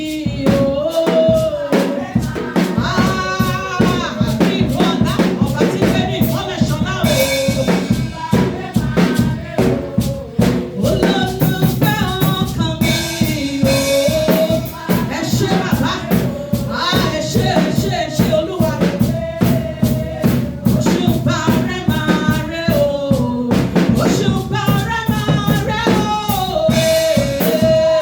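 Worship song: a melody sung over a steady drum-kit beat.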